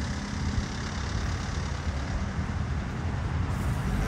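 Steady low rumble of vehicles: engines idling and traffic noise, with no distinct events.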